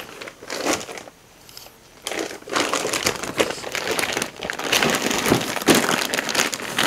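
Clear plastic bags crinkling and rustling as bagged parts are handled and lifted out of a cardboard box. There is a brief lull about a second in, then steady crinkling from about two and a half seconds on.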